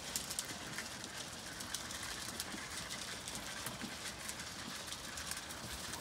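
Zwartbles ewes crunching and nosing feed in a metal trough, a steady patter of many small crisp clicks, with birds calling in the background.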